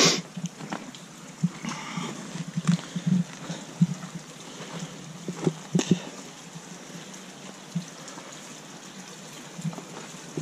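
Water from a partly frozen waterfall falling and splashing into its pool, a steady rush of water. Scattered short knocks run through it, the loudest right at the start.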